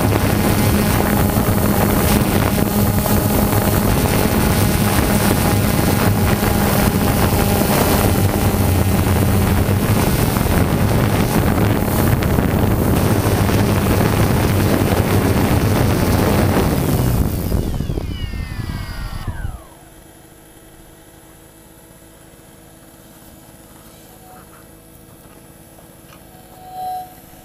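Quadcopter drone's motors and propellers, heard from its own onboard camera: a loud, steady buzzing hum. After the drone sets down, about two-thirds of the way in, the motors wind down with falling pitch and stop.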